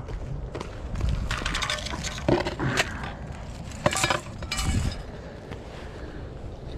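Clicks, knocks and light clinks of ice-fishing gear being handled on snow and ice as pike tip-up rigs (zherlitsy) are set, busiest in the middle and quieter in the last couple of seconds.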